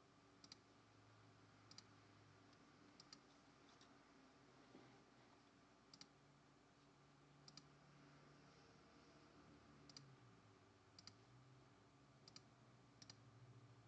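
About ten faint computer mouse clicks, mostly quick double clicks, spaced irregularly a second or two apart over quiet room tone with a low hum.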